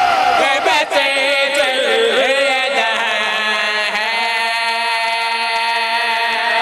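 A man's voice singing long held notes in a devotional chant, the pitch wavering slowly and ornamented here and there, carried over a loudspeaker system.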